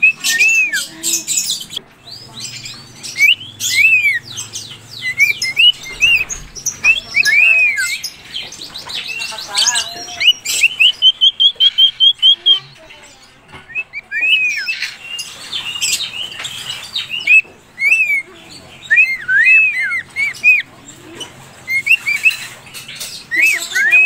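Adult and baby cockatiels chirping: many short chirps that rise and fall. There are harsh, raspy calls in the first two seconds and a quick run of about ten repeated notes a little before the middle.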